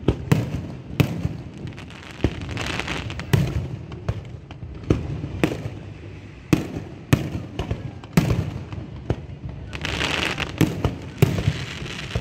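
Fireworks going off: a run of sharp bangs at irregular intervals, about one or two a second, with noisy crackle and hiss between them.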